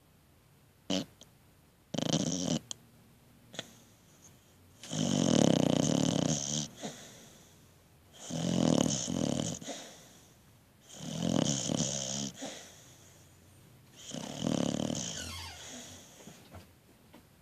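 A sleeping pet snoring: four long, rough snores about three seconds apart, after two shorter sounds in the first couple of seconds.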